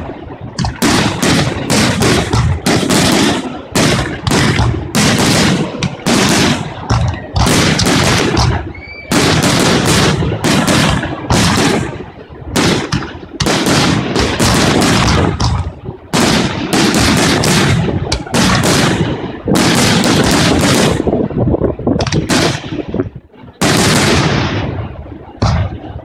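Fireworks display: a fast, unbroken barrage of aerial shell bursts, about two loud bangs a second, thinning out a little near the end.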